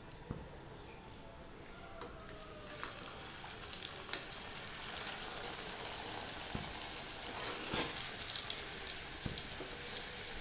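Aloo gobi paratha frying in hot oil in a kadhai: sizzling with sharp crackles starts about two seconds in and grows louder.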